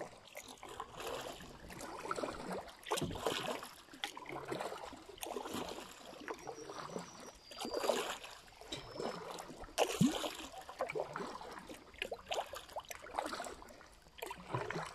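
Kayak paddle strokes in calm river water: the blade dipping in, with water splashing and dripping, about one stroke a second.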